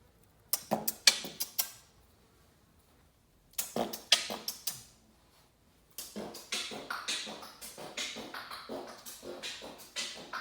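A beat built from vocal percussion sounds: sniffs, scoffs and coughs. Two short runs of sharp strokes come first, and from about six seconds in a steady, fast rhythm of them.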